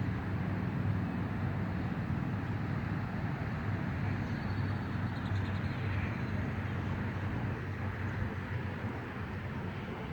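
Steady low outdoor rumble, with a few faint high chirps about halfway through.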